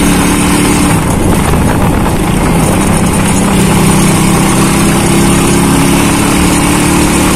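Small motorcycle's engine running at a steady cruise while riding, under heavy wind and road noise.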